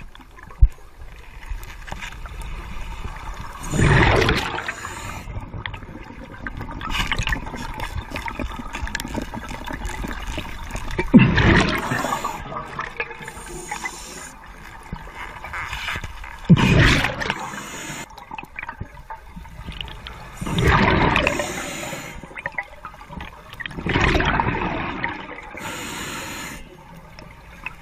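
Scuba diver breathing through a regulator underwater: a loud rush of exhaled bubbles about every four to five seconds, with a low hiss between.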